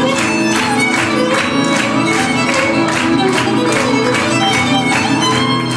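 Violin played with quick, even bow strokes over grand piano accompaniment, about three to four note attacks a second.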